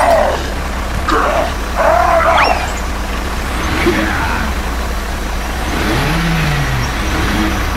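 Toy tractor's dubbed-in engine sound running steadily, with a few short voice-like yelps in the first two seconds and a brief rising squeak about two and a half seconds in.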